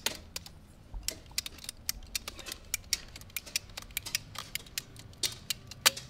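Hand-squeezed ratcheting PVC pipe cutter clicking as its blade is worked through the PVC pipe to trim it square, a run of sharp irregular clicks about three or four a second, with one louder click near the end.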